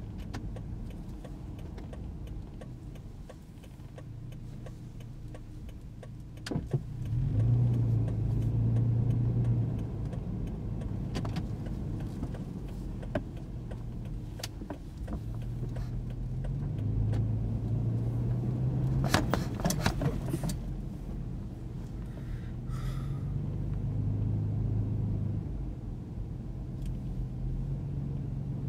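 Car engine and road noise heard from inside the cabin while driving slowly, the engine note swelling and easing several times as the car speeds up and slows. There are scattered clicks and rattles, with a short cluster of sharp rattling clicks about two-thirds of the way through.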